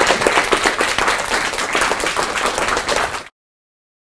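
Audience applauding, a dense patter of many hands clapping that cuts off abruptly a little over three seconds in.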